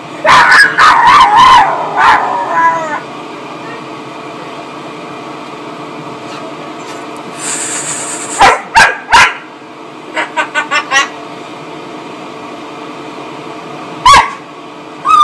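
Staffordshire bull terrier puppy barking and yipping in short bursts: a loud cluster of yips at the start, three sharp barks about halfway through, a quick run of short yips right after, and one more bark near the end.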